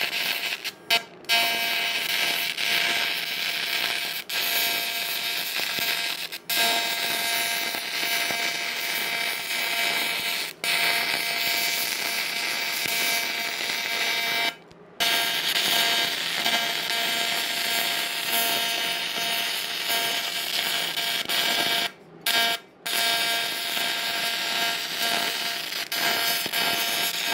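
Arc of an aluminum stick electrode welding on AC (about 250 Hz AC frequency) from an Everlast Typhoon 230 inverter welder: a steady buzz over hiss. The arc cuts out for a moment several times, longest about halfway through.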